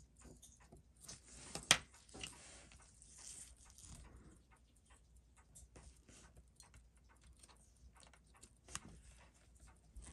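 Faint scattered small clicks and taps, with a scratchy rustle from about a second in to about four seconds and a sharp louder click just before two seconds, and another sharp click near the end.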